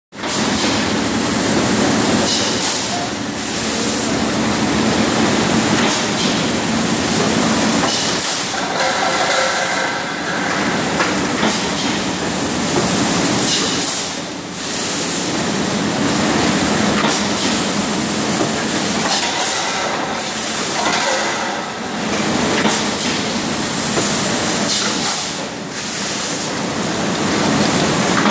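Machinery of a PET water-bottling line running: the preform hopper, elevator conveyor and automatic blow moulding machine make a steady, loud clatter and hiss that dips briefly every few seconds.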